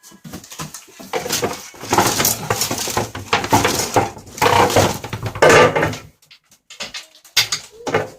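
Irregular clattering and knocking of washing machine parts being handled and moved during disassembly.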